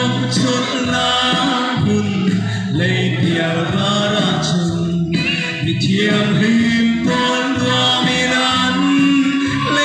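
A young man singing a gospel song into a handheld microphone, with instrumental backing music.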